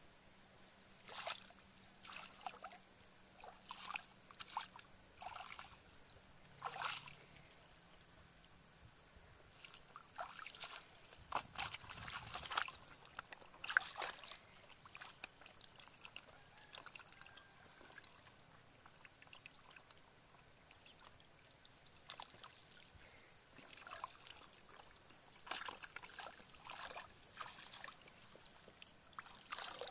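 Bare feet and hands sloshing and splashing in shallow muddy water among grass, in short irregular bursts that come thickest around the middle.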